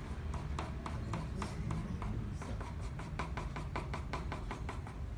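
Short, rapid hatching strokes of a drawing pencil scratching on pastel paper, speeding up to about five strokes a second halfway through.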